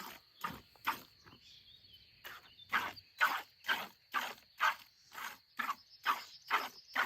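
Milk squirting into a pail as a cow is milked by hand, one short squirt about every half second, pausing for about a second near the start before the rhythm picks up again.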